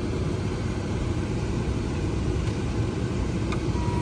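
Steady low road rumble inside a moving car's cabin, with a short electronic beep near the end.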